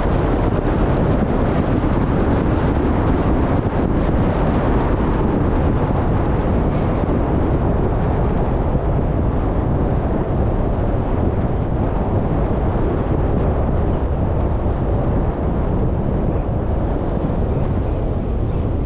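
Steady road and wind noise from a moving car, an even rush with no breaks.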